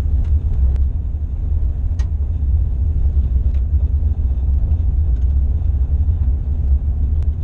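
Vehicle driving on a gravel dirt road, heard from inside the cabin: a steady low rumble of tyres and engine, with a few light ticks, the clearest about two seconds in.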